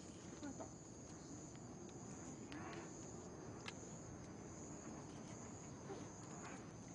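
Faint outdoor night ambience: insects trilling in one steady high-pitched band, with a few small clicks.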